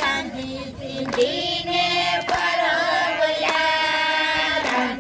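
A group of women singing together in unison, holding long steady notes that shift every second or so.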